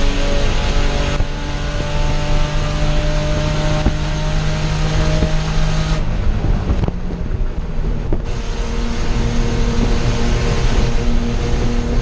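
BMW E30 race car's engine heard from inside the cockpit, pulling with its note slowly climbing; about six seconds in the note falls away for roughly two seconds as the throttle comes off, then picks up and climbs again.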